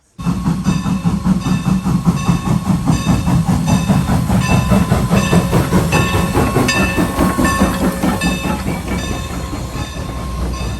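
Train running on the rails, a steady rumble with a regular repeating beat a little under twice a second and a faint steady whine. It cuts in suddenly.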